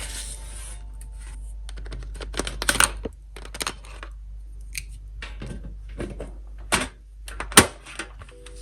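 Plastic alcohol marker barrels and caps clicking and tapping: an irregular run of sharp clicks, with the loudest pair near the end.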